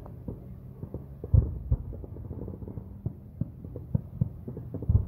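Distant fireworks going off: a run of muffled low booms and thumps at uneven intervals, the loudest about a second and a half in and again near the end, over a faint low hum.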